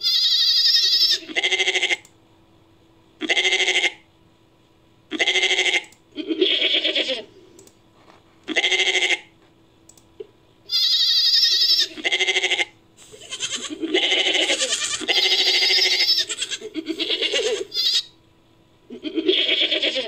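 Goat-like bleats repeated about a dozen times, each under a second or so, some higher-pitched than others, with short quiet gaps and a denser run of overlapping calls in the second half. They are edited goat and Japanese serow recordings combined into a made-up serow call.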